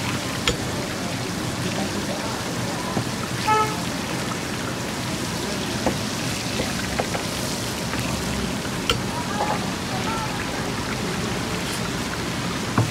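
Patties sizzling as they shallow-fry in bubbling oil on a flat griddle, a steady crackling hiss. A metal spatula clicks against the griddle a few times.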